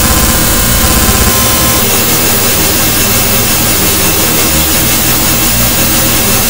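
Loud, dense wall of distorted electronic noise from an extreme-tempo hypertone music track, with a few steady high tones running through it. The lowest bass drops out for a couple of seconds in the middle, then returns.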